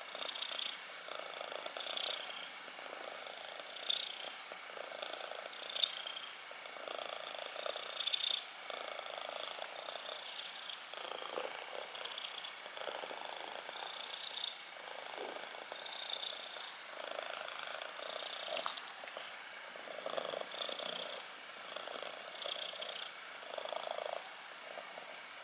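Black kitten purring close up while being stroked, the purr swelling and fading with each breath, a little over once a second. A couple of brief louder noises come about four and six seconds in.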